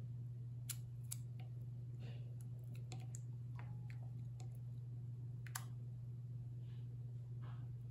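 Light wet clicks and taps of a pork cutlet being dipped and turned in a bowl of beaten egg by hand, with a couple of sharper clicks about a second in and again past the middle. A steady low hum runs underneath.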